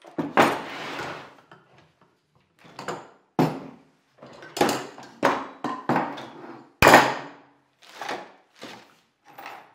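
A series of about a dozen separate knocks and thuds, each dying away quickly, the loudest about seven seconds in.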